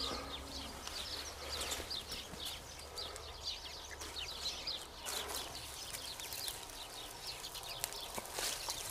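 Small birds chirping busily in the background, many short quick calls overlapping, over a faint low hum that fades about six seconds in.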